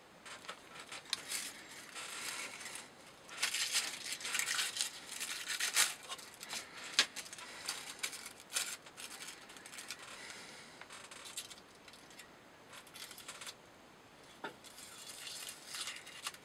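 Paper tissue rustling and crinkling in the hands in irregular bursts, as it is handled and put to a steel knife blade.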